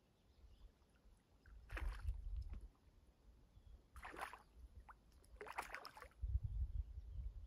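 Water splashing three times, a couple of seconds apart, with a low rumble beneath.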